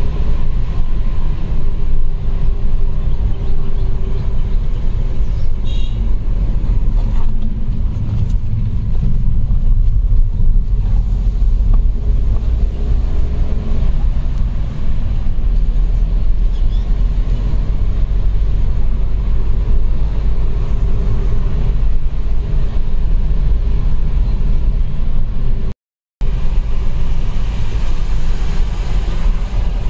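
Steady low rumble of a car's engine and tyres heard from inside the cabin as it climbs a hill road, cutting out for a moment near the end.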